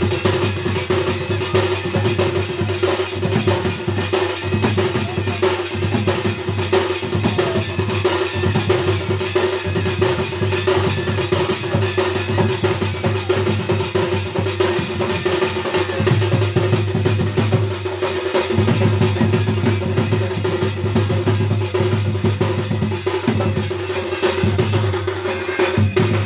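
Fast, steady drumming on a barrel drum slung at the drummer's waist, playing a continuous dance beat over a held droning tone.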